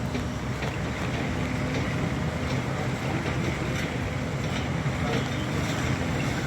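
A steady low engine drone under a wash of wind and outdoor noise, with a few faint clicks.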